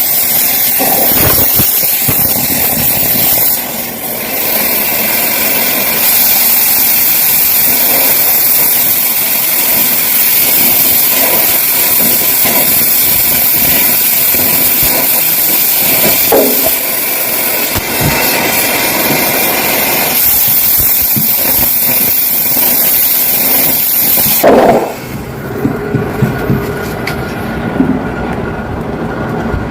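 Stick-welding arc hissing and crackling steadily, cutting off sharply about three-quarters of the way through.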